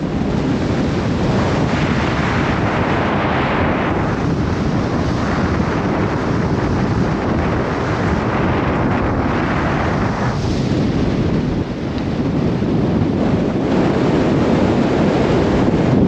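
Strong wind buffeting the microphone in gusts, a loud rushing rumble that eases briefly about twelve seconds in and then builds again.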